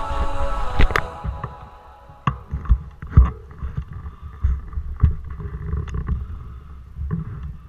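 Mountain bike rolling over cobblestone paving, picked up by a camera mounted on the bike: a low rumble with irregular sharp knocks and rattles as the wheels jolt over the stones. Background music fades out about a second in.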